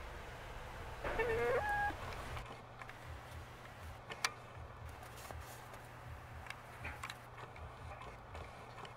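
A hen gives one short call about a second in, stepping up in pitch. After it come scattered faint clicks, the sharpest about four seconds in.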